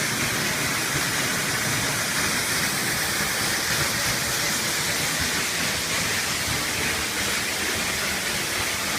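Waterfall's falling water rushing steadily, an unbroken even roar.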